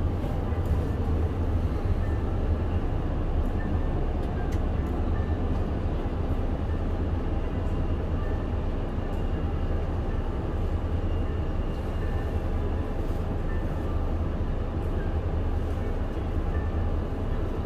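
Mitsubishi Fuso Aerostar PJ-MP35JM city bus's diesel engine idling steadily with a low hum, just after a cold start, heard from inside the bus at the front. A few faint clicks sound over it.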